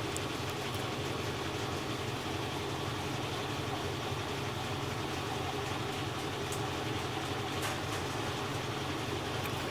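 GE EcoPerformance 15 kg top-load washing machine running steadily through its spin cycle, the motor and drum making an even hum.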